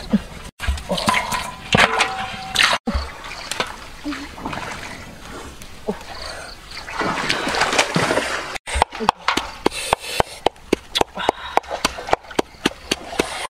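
A pestle pounding red chillies and salt in a wooden mortar: a quick, steady run of sharp knocks through the last few seconds. Before it, mixed splashing and scraping noises.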